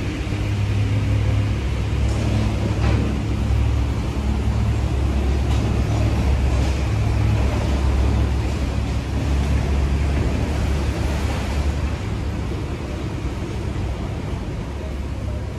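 Wind rumbling on the microphone, with faint rustling of a large tarpaulin being spread out on concrete.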